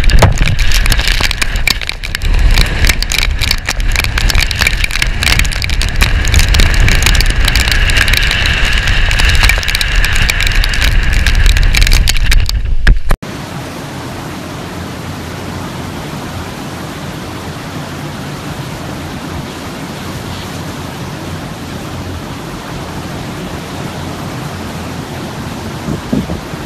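Storm-force wind buffeting a phone's microphone on a stormy shore, loud and gusty. About halfway through it cuts abruptly to a steady, much quieter rush of heavy surf and wind.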